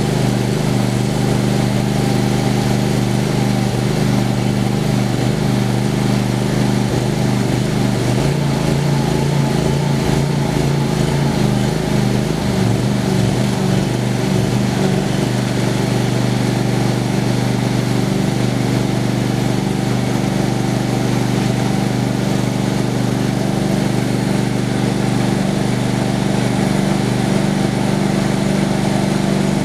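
Homemade sawmill's engine running steadily, with a brief small wobble in its pitch about a third of the way in.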